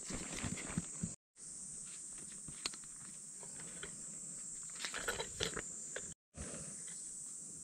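Light rustling and clicking from handling tent fabric, cord and a pole, over a steady high-pitched insect drone. The sound drops out completely twice, briefly.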